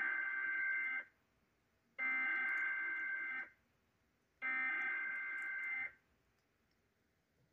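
NOAA Weather Radio SAME alert header: three shrill data bursts of warbling electronic tones, each about a second and a half long and about a second apart, the digital code that opens an Emergency Alert System warning.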